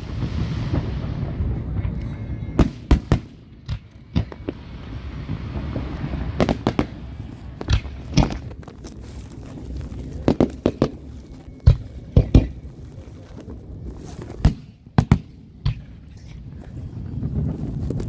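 Fireworks going off: a string of sharp bangs at irregular intervals, with stretches of hissing and a steady low rumble underneath.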